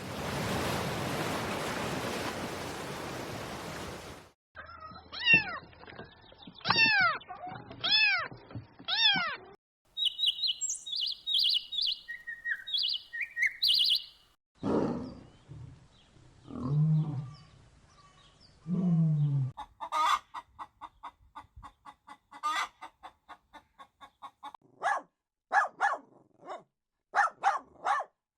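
A series of different animal calls, one after another. A hissing noise lasts about four seconds, then four rising-and-falling calls, a run of high chirps, a few low calls, and a rapid stream of short repeated calls.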